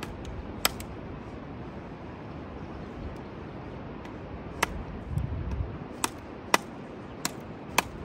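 Sharp snaps of dry twigs being cut with a blade, six of them at uneven intervals. A brief low rumble comes a little past the middle, over a steady background hiss.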